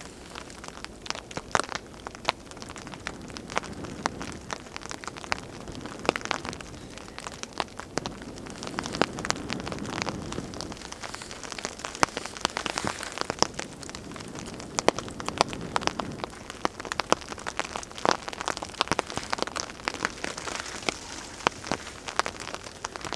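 Steady rain pattering, with frequent sharp pops and crackles from a small, newly caught fire of wet cedar sticks.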